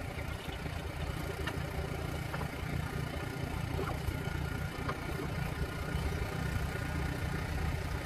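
A steady low rumble like an idling engine, with a few faint light clicks from steel tire spoons levering the bead of a large tractor tire off its rim.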